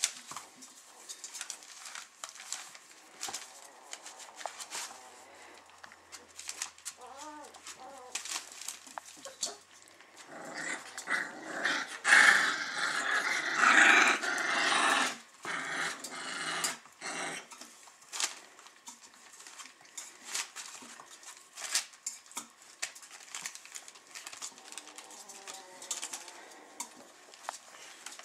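24-day-old Weimaraner puppies growling and whimpering in play, with a much louder stretch of growling for several seconds in the middle. Frequent small clicks and knocks run throughout as they scramble at a steel feeding bowl.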